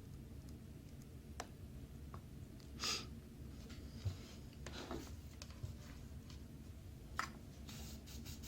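Small clicks, taps and brief scraping or hissing rushes from desoldering a relay off a car alarm's circuit board, with a low steady hum underneath.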